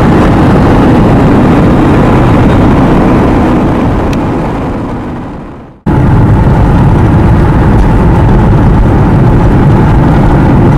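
Steady engine and road noise heard inside a moving car's cabin. About halfway through it fades away over a couple of seconds, then cuts back in abruptly.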